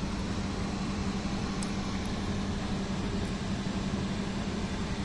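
A steady low machine hum, with a few faint light ticks.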